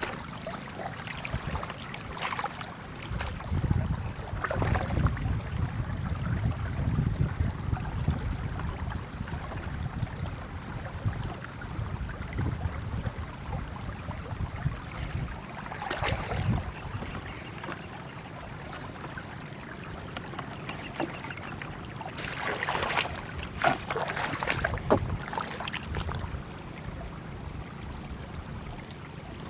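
Shallow floodwater sloshing and splashing, with a cluster of sharper splashes about three quarters of the way through.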